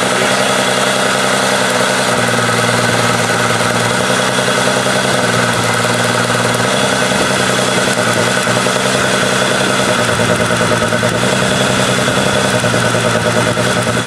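V6 engine running steadily under load while brake-torqued, as each spark plug wire is sparked to ground in turn to hunt for a misfire that only shows under load.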